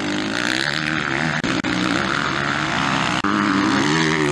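Motocross bike engines running hard and revving, their pitch rising and falling as the riders work the throttle. The sound drops out abruptly for an instant about a second and a half and three seconds in.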